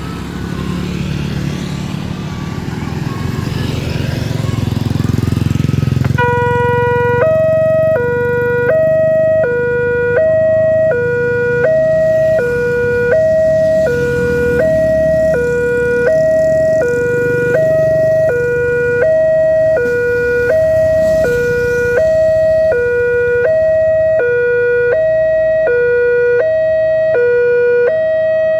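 Road traffic rumbling at a railway level crossing, then about six seconds in the crossing's warning alarm starts: an electronic two-tone chime alternating low and high, about one cycle every second and a half, signalling that a train is approaching.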